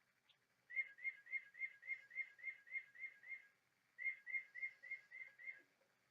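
Bird clock playing a recorded tufted titmouse song through its small speaker: a clear whistled note slurring downward, repeated about three times a second. It comes in two runs, with a short break about three and a half seconds in.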